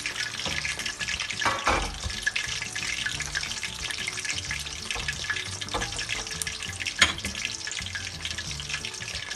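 Minced pork rolls (ngoh hiang) frying in hot oil in a stainless steel wok: steady sizzling and crackling, with a couple of sharper pops, about a second and a half in and about seven seconds in. The rolls are already cooked and only the skin is browning.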